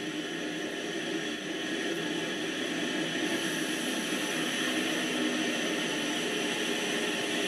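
N-scale model E 44 electric locomotive running past with its train: a steady whir of the small motor and the wheels on the rails, getting a little louder partway through.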